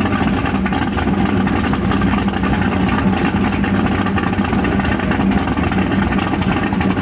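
Chevrolet Camaro's engine idling steadily, its big camshaft giving the idle its sound.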